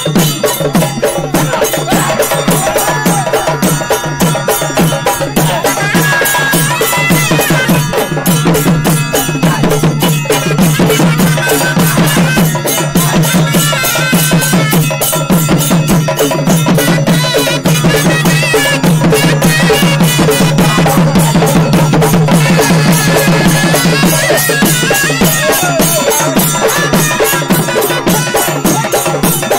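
Loud traditional percussion music, a fast, steady drumbeat that keeps going without a break.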